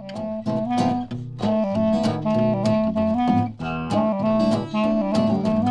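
Instrumental intro music under a title card.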